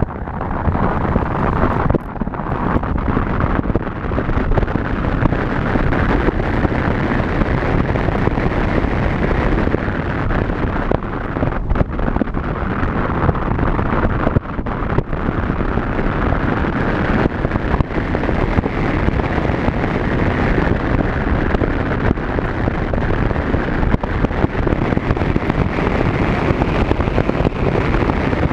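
Steady wind noise buffeting a microphone mounted outside a Ford Fiesta as it drives along a snow-covered road, with the car's road noise underneath.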